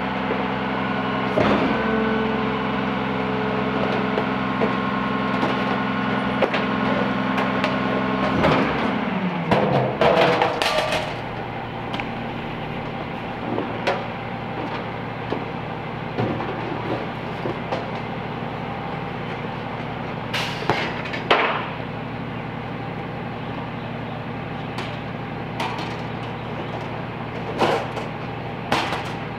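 Peterbilt 320 garbage truck engine held at raised speed, as when its McNeilus rear loader's packer runs, then dropping to a steady idle about nine seconds in. Several metallic bangs and thumps follow as carts are knocked against and emptied into the rear hopper.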